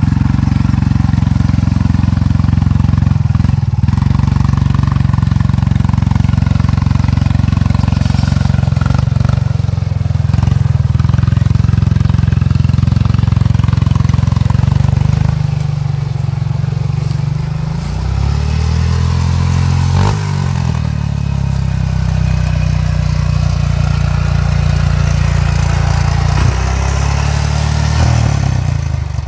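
ATV engine running hard under load as the machine churns through deep mud. It holds a steady high rev for about the first half, then eases off, with the pitch dipping and climbing again for a couple of seconds before it runs on.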